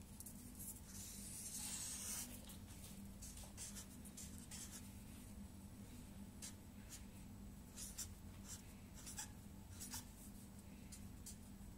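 Black felt-tip marker drawing on paper: faint scratchy strokes, one longer stroke about a second and a half in, then a run of short strokes.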